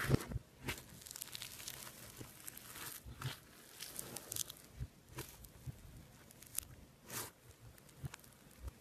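Floam (foam-bead slime) crackling and crunching under fingers as hands press and pull at it, in scattered soft crackles and sharp little pops.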